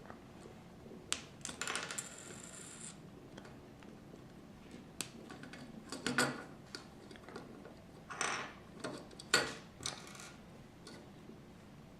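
Small plastic LEGO pieces clicking and clattering as they are handled and pressed on, a series of separate sharp clicks with a short rustle a couple of seconds in.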